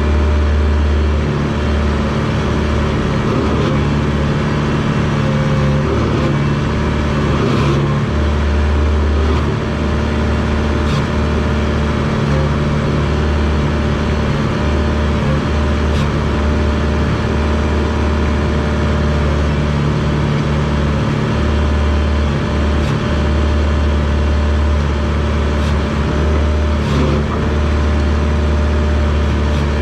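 Diesel engine of a small Komatsu bulldozer running steadily under working load, its low drone swelling and easing every few seconds as the machine pushes. A few faint clicks are heard now and then.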